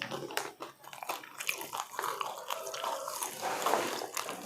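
Potato chips being bitten and chewed close to the microphone: a busy run of dry crunches and crackles.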